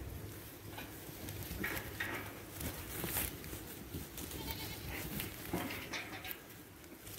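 Australian White x Dorper ewe lambs bleating several times, short separate calls from the flock.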